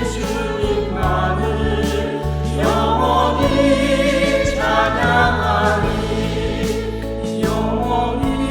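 Church choir singing a Korean choral anthem in held chords that change every second or two, with a swell about two and a half seconds in.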